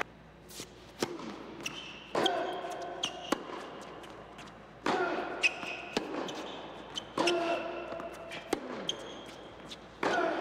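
Tennis ball bounced on a hard indoor court, a series of sharp, irregularly spaced bounces, each ringing on in the large hall.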